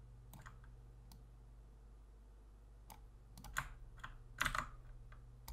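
A few scattered clicks and keystrokes at a computer keyboard and mouse, faint at first and louder in the second half, over a steady low hum.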